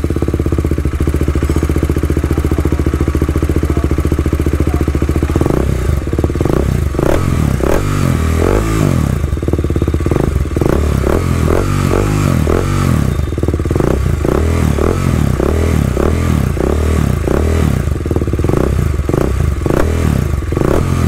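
TVS Apache RR 310's single-cylinder engine running through an R9 aftermarket muffler with its dB killer fitted: a steady idle for about five seconds, then revved in many quick, repeated throttle blips.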